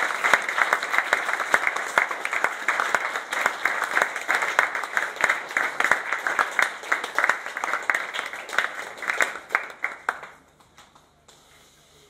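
Audience applauding with dense, even clapping that dies away about ten seconds in.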